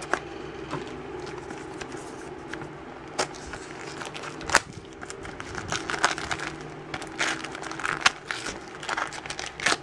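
Plastic shrink-wrap on a small toy blind basket crinkling and crackling as fingers tear and peel it off, with a few sharp clicks, the first as scissors cut into it.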